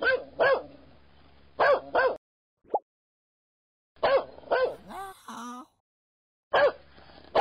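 A small dog barking and yipping: short, high barks in little groups of two or three, with pauses between.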